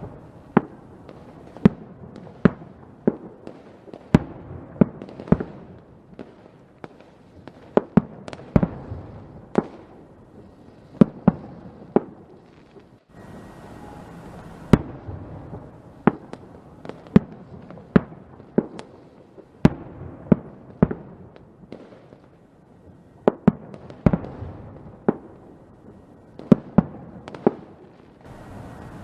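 Fireworks bursting: a long run of sharp bangs at irregular intervals, sometimes several in quick succession, over a continuous rumble and crackle from the display.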